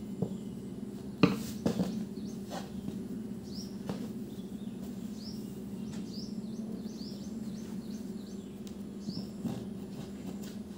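Hands handling cloth on a wooden tabletop: one sharp knock about a second in, then a few lighter knocks, over a steady low hum. A bird chirps short, repeated high notes through the middle.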